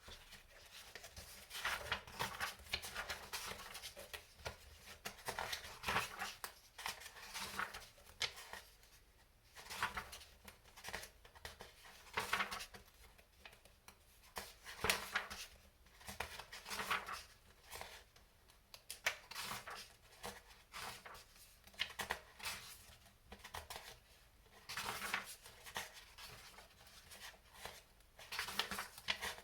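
Hands handling small kit parts and paper: irregular rustling, scraping and light clicks in short bursts, with brief pauses between them.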